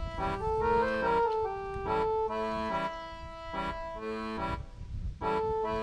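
Background music: an instrumental melody of short notes, several to the second, with a low rumble underneath.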